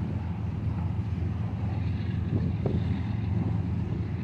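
Covered hopper cars of a slow-moving freight train rolling past, a steady low rumble of steel wheels on rail, with a couple of faint clanks about two and a half seconds in.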